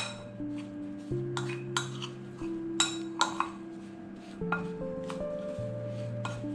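Metal spoon stirring a dry spice-and-flour mix in a glass bowl, clinking against the glass several times with short rings. Background music with slow held notes plays underneath.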